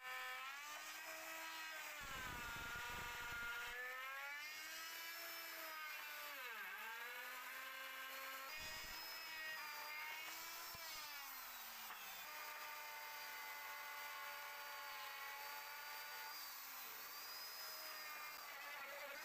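Plunge router running and cutting into a wooden door frame member. Its motor whine sags in pitch and recovers as the bit takes load, with rougher cutting noise about two seconds in and again near nine seconds.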